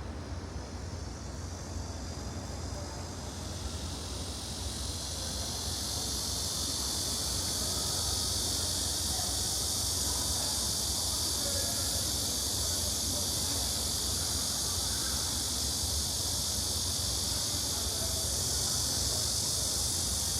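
Steady high-pitched insect drone that swells in over the first few seconds and then holds level, over a low steady rumble.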